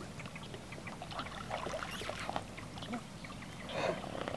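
Pond water splashing and sloshing around horses wading through it, a string of small irregular splashes with a few louder ones midway and near the end.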